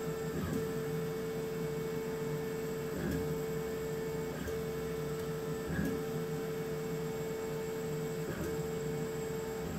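Laser cutter running while cutting slots in a wooden sheet: a steady machine hum and whine, broken briefly every second or few as the head moves between cuts, with soft ticks at each break.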